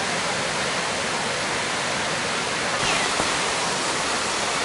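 Steady rushing of a mountain waterfall and its creek cascading down a rocky canyon.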